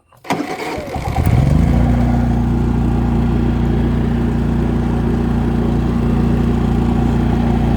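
Honda EU30is inverter generator's single-cylinder engine starting up, its pitch rising for about a second and then settling into a steady run, on a newly fitted controller.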